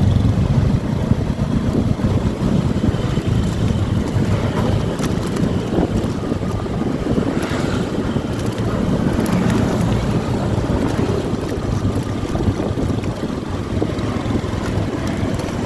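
Wind noise rushing over the microphone on a moving motorcycle, with the engine and road noise underneath, steady throughout.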